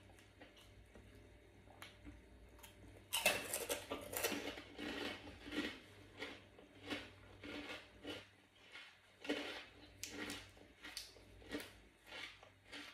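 Close-up chewing of a mouthful of food: a loud crunchy bite about three seconds in, then steady wet, crackly chewing at roughly two chews a second.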